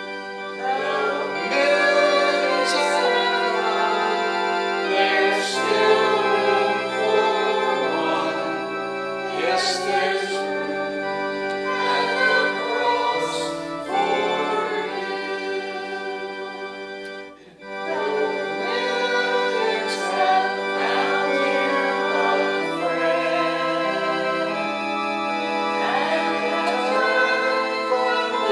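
Congregation singing a hymn with held notes over an instrumental accompaniment. The music drops off briefly about seventeen seconds in, then resumes.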